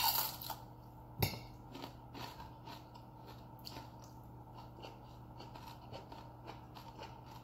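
People chewing food close to the microphone: a run of short wet clicks and mouth smacks, with a sharper click at the start and another about a second in.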